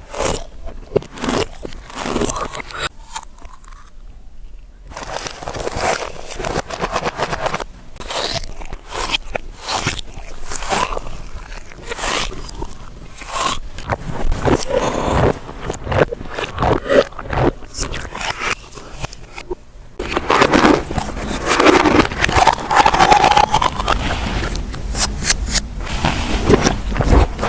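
Close-miked eating sounds played backwards: crunching, biting and chewing of food as a dense run of crisp clicks and crackles. About twenty seconds in the sound turns louder and denser.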